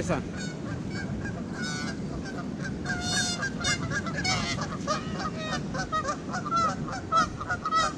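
Canada geese honking, a few calls at first, then several a second from about three seconds in, over the steady rush of a fast-flowing river.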